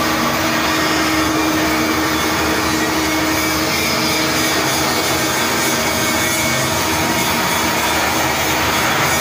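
Steady, loud machinery noise inside a steel ship's hull: a constant hiss with a low hum.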